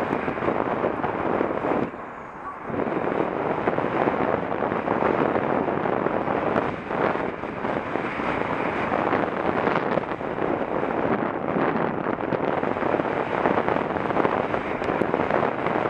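Steady wind rush over the microphone of a camera moving along the road, mixed with road noise; it eases briefly about two seconds in.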